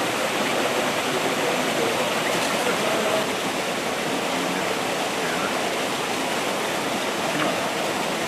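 Waterfall: water pouring and splashing steadily over rocks.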